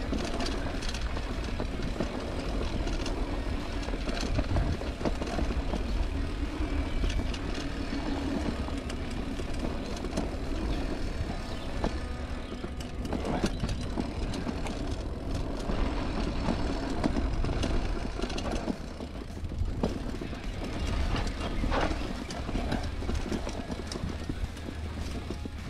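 Mountain bike rolling over a packed-dirt trail: steady tyre noise with frequent rattles and clicks from the bike over bumps, and a continuous wind rumble on the microphone.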